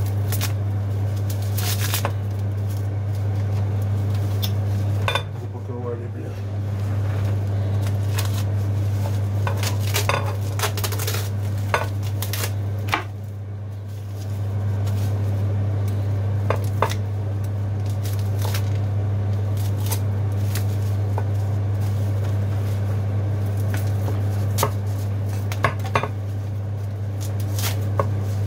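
Scattered clinks and knocks of hard objects being handled, like dishes and cutlery, over a steady low hum.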